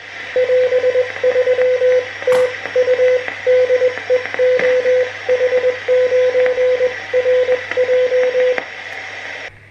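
Morse code (CW) from a communications receiver's speaker: a steady mid-pitched tone keyed in quick dots and dashes for about eight seconds over band hiss and a low hum, with one click a couple of seconds in. The hiss cuts off abruptly near the end.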